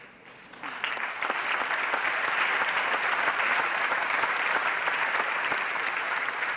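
Audience applauding in a large hall. The clapping starts less than a second in, swells to a steady level, and begins to thin out near the end.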